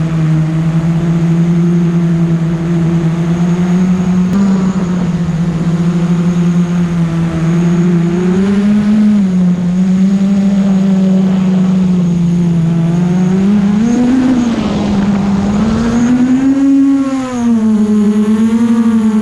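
FPV quadcopter's motors and propellers buzzing in flight. The pitch swells up and falls back with the throttle several times, most strongly about two-thirds of the way in and again near the end.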